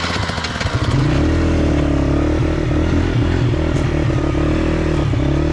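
Small off-road motorbike engine running close by, picking up about a second in and then holding a steady, slightly wavering note.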